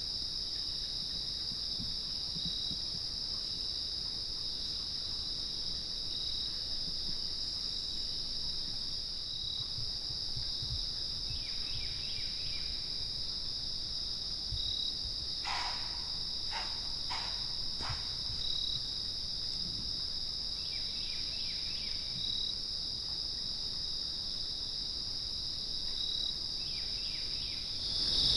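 Steady high-pitched chorus of insects, with a slower pulsing chirp beneath it about once a second. Around the middle, four short sharp sounds come in quick succession.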